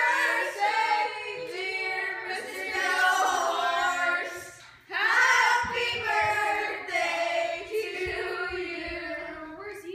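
A group of young voices singing together in two long phrases, with a short break for breath just before the middle.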